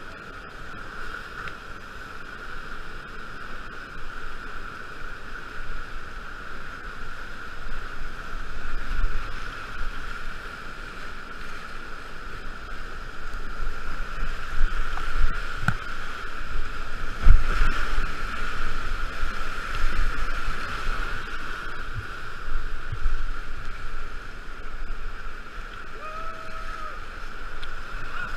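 Whitewater rapids rushing and splashing around a kayak, with waves breaking over the bow and paddle strokes in the water. The sound surges unevenly, with the heaviest crash about seventeen seconds in.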